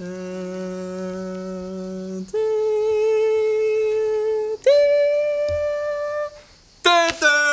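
A voice sings long held notes without words, each about two seconds and each a step higher than the last. After a brief gap, a higher note starts near the end.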